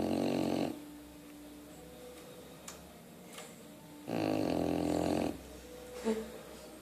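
Snoring: one buzzing snore breath tailing off just under a second in, a quiet gap, then another snore of about a second starting about four seconds in.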